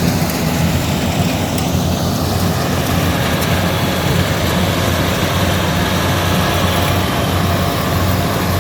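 Rice combine harvester's diesel engine and threshing machinery running steadily: a constant low engine drone under a broad mechanical hiss.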